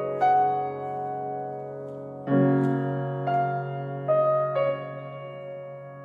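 Piano music: a slow melody of single notes that ring out and fade, with a fuller chord and low bass struck about two seconds in.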